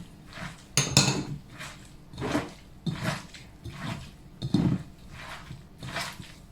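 Kitchen utensils and small bowls clinking and clattering as spices are added to a mixing bowl. A series of short knocks, the sharpest about a second in.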